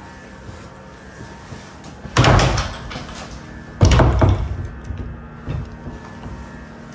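Closet doors being pushed shut: two knocks about a second and a half apart, each with a short clatter, then a lighter knock a moment later.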